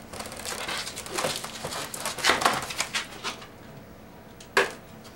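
Inflated latex twisting balloons squeaking and rubbing as a twisted balloon sculpture is handled and moved, with a single sharp snap about four and a half seconds in.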